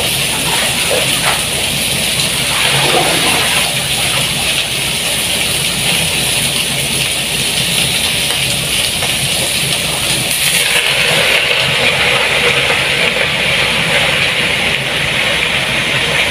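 Kitchen tap running steadily into a basin as bunches of water spinach are rinsed under it: an even hiss of running water that shifts in tone about ten seconds in.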